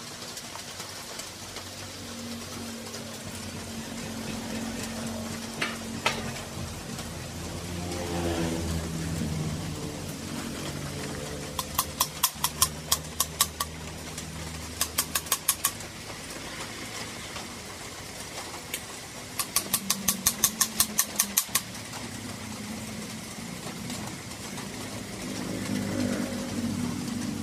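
An engine runs in the background, its pitch shifting and rising once near the middle. Three quick runs of sharp, evenly spaced clicks stand out, the loudest sounds, at about 12, 15 and 20 seconds in.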